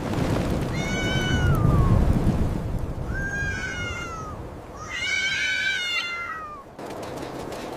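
A cat meowing three times, each call drawn out and falling in pitch at its end, the third the loudest, over a low rumble of storm wind. The rumble cuts off suddenly near the end.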